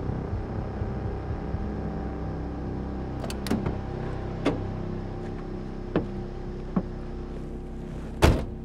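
Ambulance engine idling with a low steady rumble. A few sharp clicks come through the middle, and a single heavy thump near the end.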